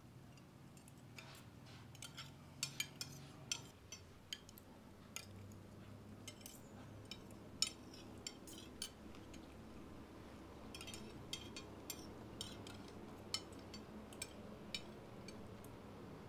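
Spoons and forks clinking and scraping against ceramic plates and bowls during a meal: scattered light clicks at irregular intervals.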